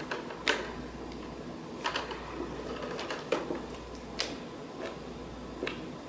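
A handful of light, irregular taps and clicks from tools being handled on a work table, about one a second, over a faint steady low hum.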